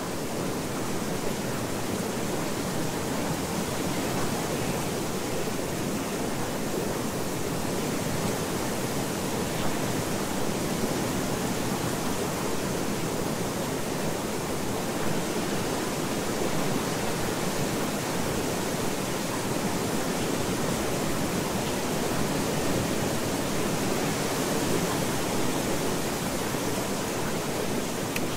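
Steady, even rushing noise with no pitch or rhythm, the masking layer of a subliminal audio track.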